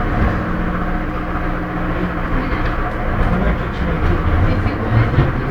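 Budapest M2 metro train running through the tunnel, heard from inside the passenger car: a steady rumble of wheels on rail with a low hum, the low rumble swelling a little near the end.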